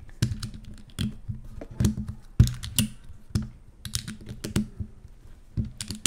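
Plastic centre caps being pressed back onto a YuXin Little Magic 3x3 speed cube after tensioning: a run of sharp, irregular plastic clicks and snaps, a few a second, as the cube is handled and turned.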